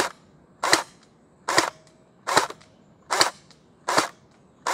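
Splat-R-Ball SRB400 gel blaster, rebuilt with an all-metal gearbox and an M90 spring, firing in single fire mode: about six sharp shots, each a brief snap of the gearbox cycling and the piston releasing, evenly spaced a little under a second apart.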